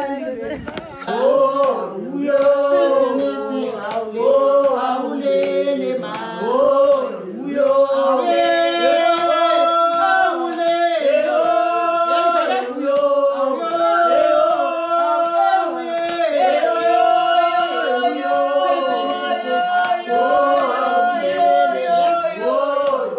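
A group of voices singing together unaccompanied, several parts in harmony with long held notes: a traditional Xhosa song.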